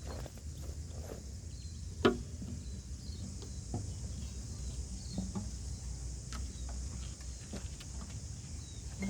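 Outdoor nature ambience: a steady high insect drone over a low rumble, with scattered small clicks and one sharp knock about two seconds in.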